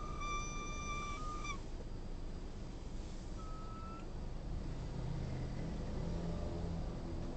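2018 Honda CR-V idling with a high whistle over the low engine rumble: the whistle holds steady, dips and stops about a second and a half in, then comes back briefly around three and a half seconds in.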